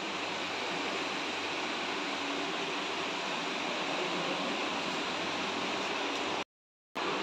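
Steady, even hiss of indoor room noise. It cuts to dead silence for about half a second near the end, then resumes unchanged.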